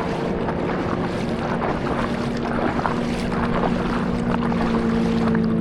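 Paddle strokes splashing and water lapping around a stand-up paddleboard, over a steady low engine hum from a boat and some wind on the microphone.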